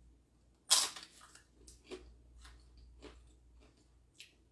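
A crisp cracker snapping as it is bitten, loudest about a second in, then several smaller crunches as it is chewed.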